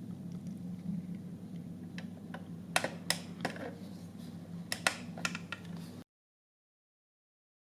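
A handful of sharp clicks and taps over a steady low hum, bunched about three seconds in and again about five seconds in. The sound cuts to dead silence about six seconds in.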